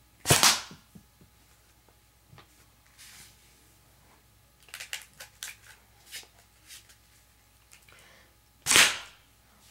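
Two shots from a homemade paper bolt-action rifle, each a short sharp burst as the dart fires and hits a paper target, about eight seconds apart. Soft clicks and rustles in between.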